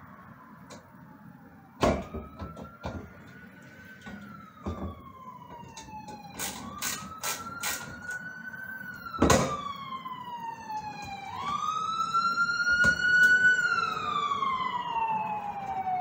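Ambulance siren passing, in a slow wail that rises and falls about every four and a half seconds and grows louder in the second half. Several sharp knocks and clicks sound over it, the loudest about nine seconds in.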